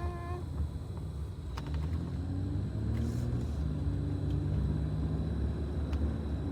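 A baby's brief whimpering call, then a steady low vehicle rumble like a car in motion heard from inside.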